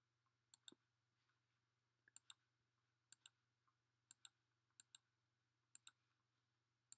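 Faint computer mouse clicks at uneven intervals over near silence, each a quick press-and-release double click, about seven in all.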